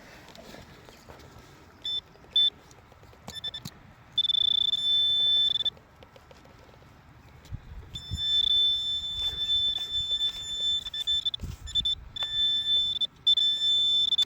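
Metal detector sounding a steady high-pitched target tone over metal in the dug soil, switching on and off as it is swept: a few short blips, then longer held tones with brief breaks. The target turns out to be an old lid. A few dull knocks from handling sit between the tones.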